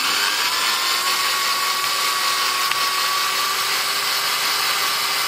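Power drill running slowly, backing a stripped screw out of a wooden board with duct tape pressed over the screw head to give the bit grip. A steady motor whine that rises slightly in pitch over the first second.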